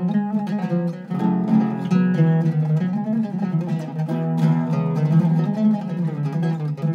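Iraqi-style oud with a cedar soundboard and a mahogany and wenge back, played solo with a plectrum: quick runs of plucked notes that keep going without a break.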